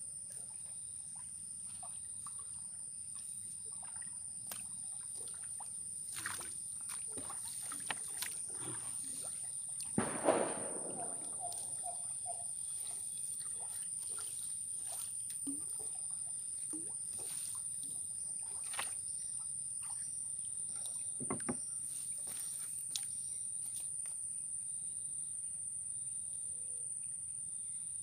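Wooden canoe and a gill net being paid out into a lake: scattered knocks on the hull and water sloshing, the loudest splash about ten seconds in. A steady high-pitched trill of crickets carries on throughout.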